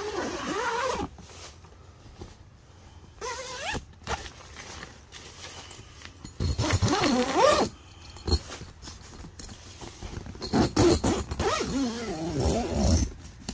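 Zippers on the Gazelle T4 hub tent's window flaps being pulled shut, four separate zips of about a second each, the last the longest, with some handling of the tent fabric.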